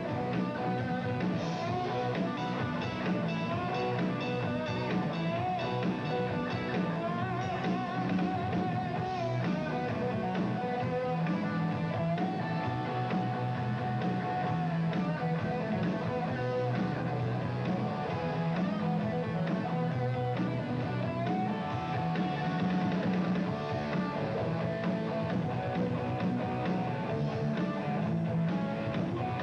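Live rock band playing steadily: distorted electric guitars over bass and a drum kit.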